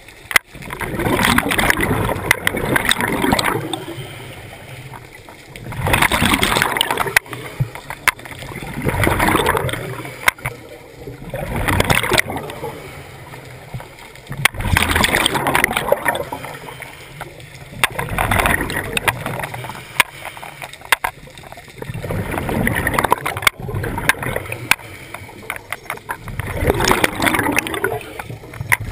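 Scuba breathing heard underwater: a diver's regulator breathing in a regular cycle, each exhalation a loud gurgling burst of bubbles, about eight in all, roughly three seconds apart, with quieter stretches between.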